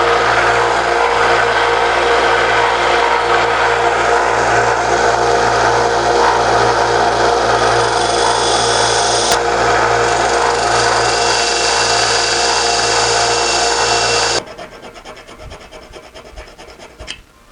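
A small power tool grinding away the edge of a brass plate, running steadily with a scraping sound, then switched off about fourteen seconds in, followed by quieter sounds.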